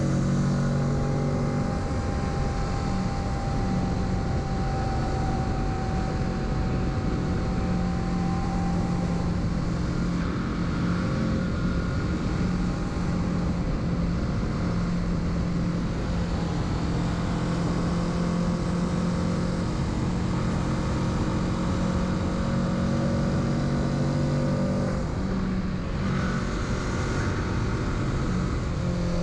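Kawasaki Z650 parallel-twin engine running while riding, over steady wind noise. The engine note shifts about a second in and again about 26 seconds in, as with a throttle change or a gear shift.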